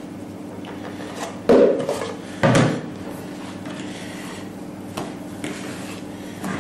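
A utensil folding batter in a mixing bowl, scraping along the bottom, with two louder knocks about a second and a half and two and a half seconds in.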